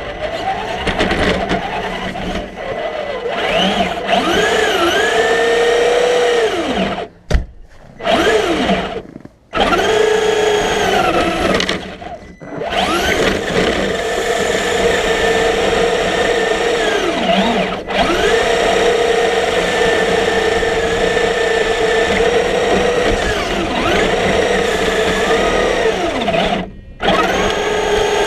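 Electric motor and drivetrain of a Traxxas remote-control car whining, the pitch rising and falling as it speeds up and slows with the throttle. It cuts out briefly four times, with a sharp knock about seven seconds in.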